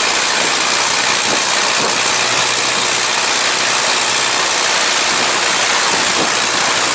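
Boat engine running steadily under way, a loud even noise with no change in pace.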